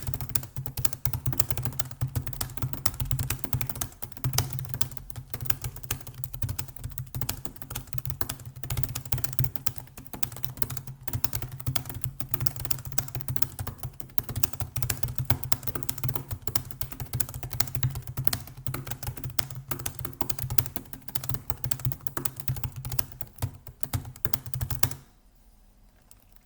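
Fast, continuous typing on a computer keyboard, at around 110 words per minute: a dense stream of key clicks that stops abruptly about 25 seconds in.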